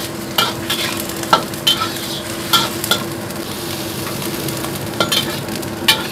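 Greens sizzling as they are stir-fried in a hot wok, with a steady low hum underneath. A metal spatula clanks and scrapes against the wok about six times in the first three seconds, then knocks twice more near the end as the greens are scraped onto a plate.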